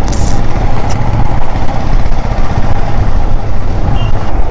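Motorcycle running as it is ridden slowly, a steady low rumble with a faint steady tone above it.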